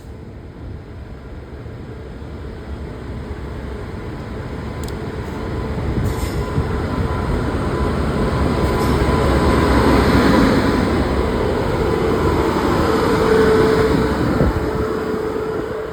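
Passenger train, the Shatabdi Express, pulling into the platform: a rumble of wheels that grows steadily louder for about ten seconds, with a squealing tone from the wheels and brakes that is strongest in the second half as the train slows.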